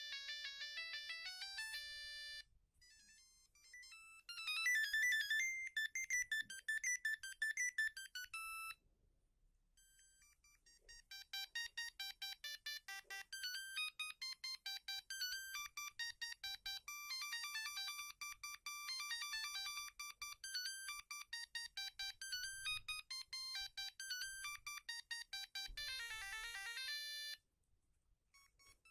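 Siemens A50 mobile phone ringtones playing one after another: a tune ends about two seconds in, a short one follows, then a long melody of quick electronic notes, with brief pauses between tunes and a new one starting near the end.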